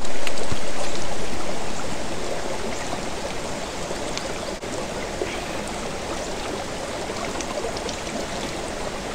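A small mountain spring stream running and trickling over rocks, heard close up. It is loudest at the start, eases off over the first few seconds, then runs on steadily.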